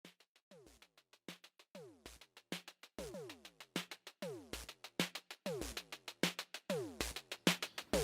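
Electronic background music: a drum-machine beat of low kicks, each with a falling synth sweep, and crisp ticks on top, fading in and growing louder.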